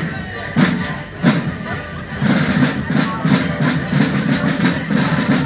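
Morris dance music played live on an accordion-type squeezebox, its sustained chords carrying a steady tune, with a regular beat of sharp percussive strikes from the dancers' steps and leg bells.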